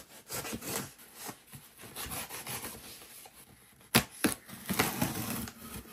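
Cardboard shipping box being torn and pulled open: a run of rubbing and scraping, with two sharp snaps about four seconds in.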